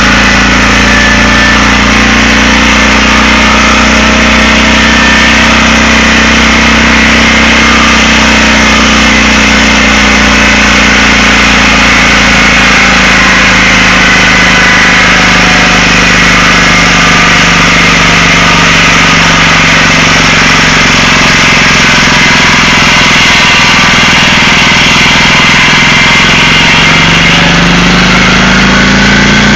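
Sawmill engine running loud and steady, its pitch sinking slowly over about twenty seconds and then climbing back near the end.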